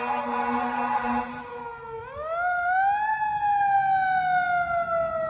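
Fire truck siren wailing as the ladder truck responds to an alarm. At first it falls in pitch under a steady horn blast that stops about a second in. About two seconds in the siren winds back up, then slowly falls in pitch again.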